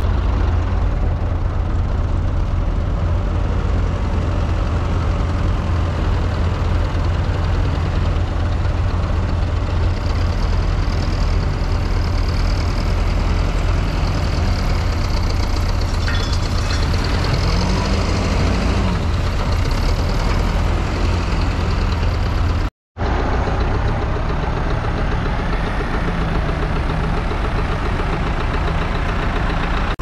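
Backhoe loader's diesel engine running steadily, heard close up, with a strong low rumble while it loads dirt into a tractor trolley. The sound drops out for an instant about three-quarters through.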